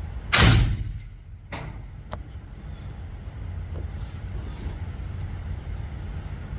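A single suppressed gunshot about a third of a second in, with a short ring after it. A softer knock and a sharp click follow over the next two seconds, over a steady low rumble.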